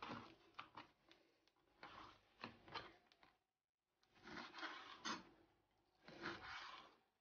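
Kitchen knife slicing raw lamb leg into strips on a wooden cutting board: faint cutting strokes and light knocks of the blade on the wood, in about four short bursts.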